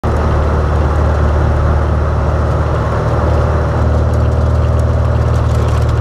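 Birkin Seven open sports car's engine running steadily at an even speed while driving, with road noise.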